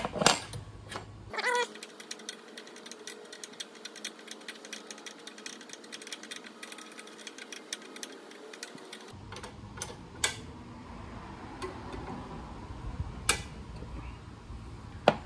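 Socket ratchet wrench clicking rapidly, about ten clicks a second, as bolts on an Evinrude Big Twin 40 outboard's starter bracket are loosened. The clicking stops about nine seconds in, followed by a few sharper metal knocks.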